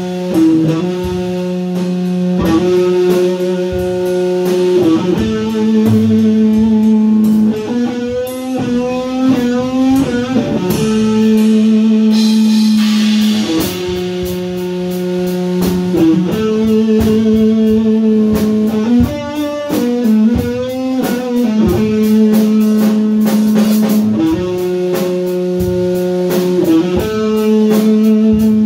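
Electric guitar and drum kit played live together in a rock instrumental, the guitar holding long, sustained notes and changing pitch every few seconds over steady drum hits.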